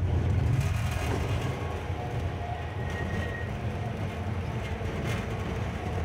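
Alishan Forest Railway narrow-gauge passenger train running, heard from inside the carriage: a steady low rumble with faint thin squeals mixed in.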